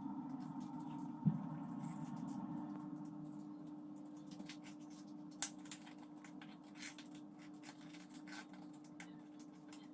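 Paper rustling and crinkling as a small square of paper is folded and creased by hand, with light taps on a wooden tabletop and a single sharp knock about a second in; a low steady hum runs underneath.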